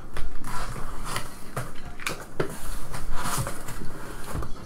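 Brown cardboard box being handled and its taped flaps opened: cardboard scraping and rustling, with several light knocks.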